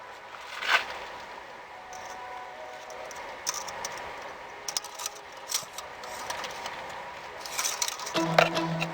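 Small metallic clicks and rattles of hands handling parts, with one sharper click about a second in and a scatter of light ticks in the middle. Music with plucked strings comes in near the end.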